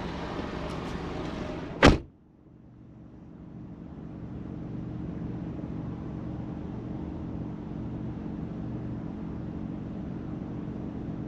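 A car door slams shut about two seconds in, cutting off the open-air noise. After that the Smart car's three-cylinder 1.0-litre engine idles steadily, heard muffled inside the closed cabin.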